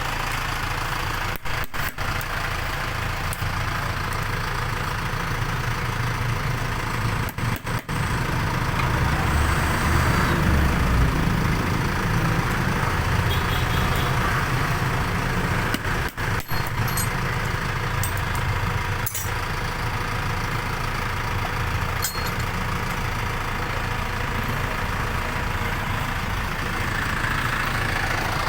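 Vehicle engine idling steadily, with a heavier, louder low rumble for a few seconds about a third of the way in.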